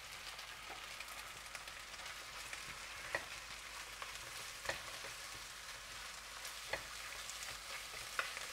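Raw chicken breast pieces sizzling in hot oil with fried onion and walnut in a nonstick pot over high heat. The pot is stirred, and the utensil gives about four sharp knocks against it.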